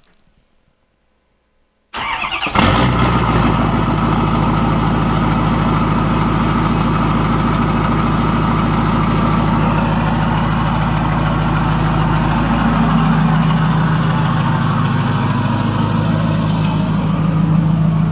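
A lifted Ford Super Duty pickup's engine is cold-started about two seconds in. It cranks briefly, catches almost at once, then idles steadily on a cold morning, its idle settling a little lower about two-thirds of the way through.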